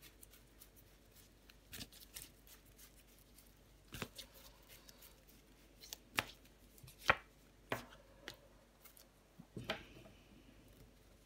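Tarot cards being shuffled by hand: scattered short snaps and slaps of the cards, the loudest about seven seconds in. A card is laid down on the wooden table near the end.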